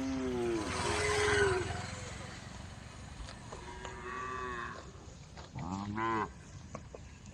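Cows mooing to one another in a herd, about four separate moos of varying loudness and pitch, one after another, the clearest near the start and about six seconds in.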